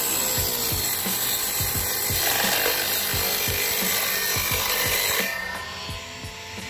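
Homemade circular saw, an 895 DC motor driving a 4-inch blade, cutting through a board with a loud, rough rasp. A little after five seconds in, the cut ends and the sound drops to the motor's steady whine.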